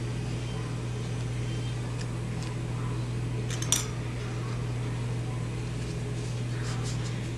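Black 3D-printed plastic mount pieces clicking and tapping as they are handled and slid together, with a sharper cluster of clicks about halfway through. A steady low hum runs underneath.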